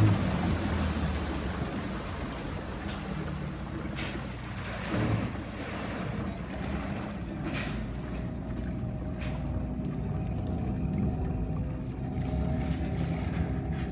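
Motorboat engine running steadily, with water and wind noise and a few light knocks, the loudest about five seconds in.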